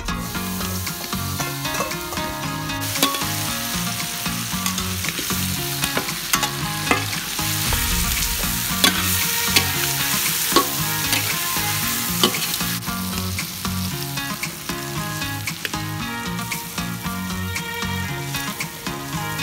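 Quail sizzling as it fries in melted butter in a large aluminium wok, with a metal spatula stirring and scraping, and now and then clicking, against the wok.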